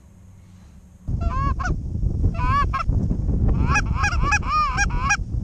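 A flock of geese calling, with many short, arching calls overlapping and coming thickest near the end. Wind rumbles on the microphone from about a second in.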